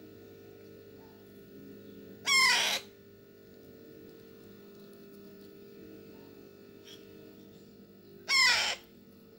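Baby parrot chick giving two short calls of about half a second each, one a couple of seconds in and one near the end, while it is being hand-fed formula from a spoon: food-begging calls. A steady low hum lies underneath.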